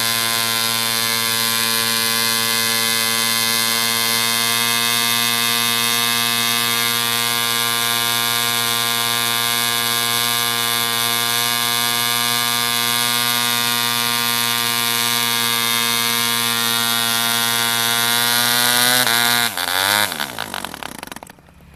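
1949 ED Mk IV 3.46 cc model diesel engine running flat out on a test stand, turning a 12x4 wooden propeller at a steady 7,200–7,300 rpm, running a bit overcompressed. About 19 seconds in it stops, its pitch falling steeply as it winds down.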